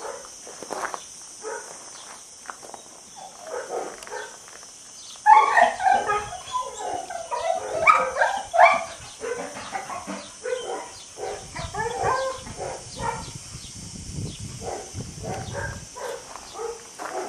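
Dogs barking in kennels, many short overlapping barks throughout, loudest and densest from about five seconds in.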